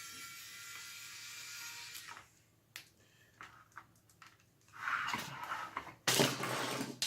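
Small electric screwdriver motor whirring steadily as it backs out a screw holding the circuit board of a Syma X5C transmitter, stopping about two seconds in. A few light clicks follow, then from about five seconds in, louder bursts of scraping and rattling noise.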